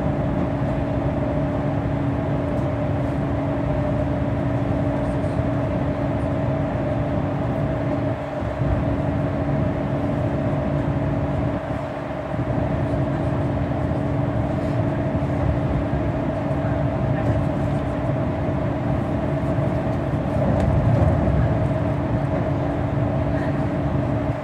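MAN RR8 shuttle bus cruising through a road tunnel, heard from inside the cabin: a steady engine drone with a constant hum over tyre and road noise, dipping briefly twice.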